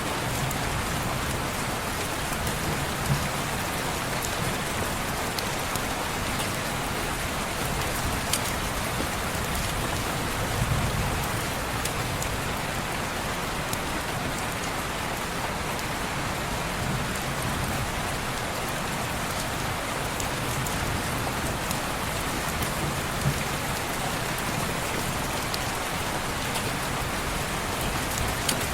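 Steady rain falling on a window, an even hiss of drops on glass, with a few single sharp clicks now and then.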